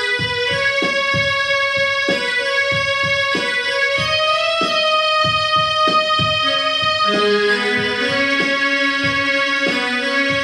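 Roland electronic keyboard playing a Hindi film-song melody in long held notes over a steady beat.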